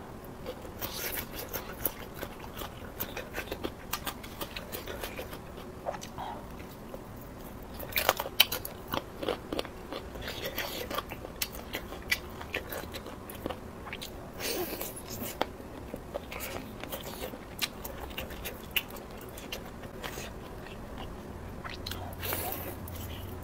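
Close-miked eating: chewing noodles and biting into spicy duck neck, with many sharp, irregular wet clicks and crunches. The loudest cluster comes about eight seconds in.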